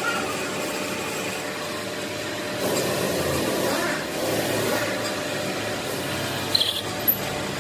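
Metalworking machine in a workshop running steadily with a constant hum, getting louder and rougher for about two seconds in the middle, with two short sharp clicks near the end.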